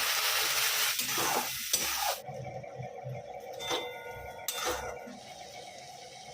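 Food sizzling loudly in hot oil in a pan for the first two seconds, then settling into a quieter sizzle while a spatula stirs and scrapes the pan a few times.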